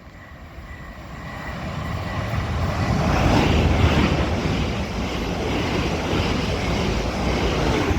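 Two coupled Class 450 Desiro third-rail electric multiple units passing through the station at speed. The rush of wheels on rail and of air swells over the first few seconds, then stays loud.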